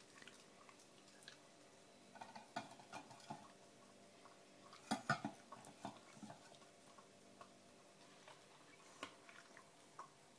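Whippet eating wet porridge from a bowl: scattered soft lapping and mouth clicks, with the bowl knocked a few times and the loudest knocks about five seconds in.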